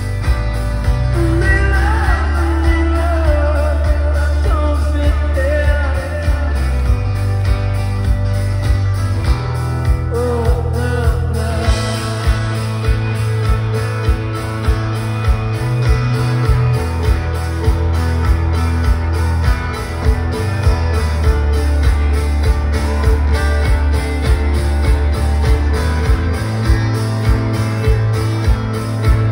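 Live rock band playing: a male voice singing over electric guitar, bass and a steady drum beat, with the singing dropping out for stretches between lines.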